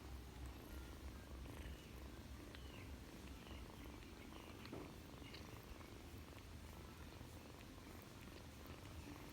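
Kitten purring, a faint low steady rumble, with a few faint short high chirps.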